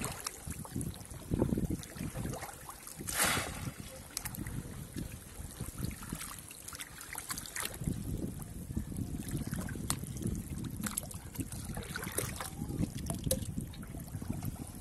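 Water sloshing and splashing around a person wading waist-deep and working a bamboo polo fish trap down into the water, with a sharper splash about three seconds in.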